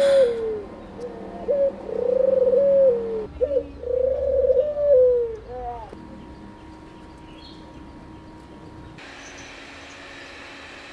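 Caged dove cooing: three rounds of a short note followed by a longer rolling coo, ending a little after halfway. A faint steady hiss follows.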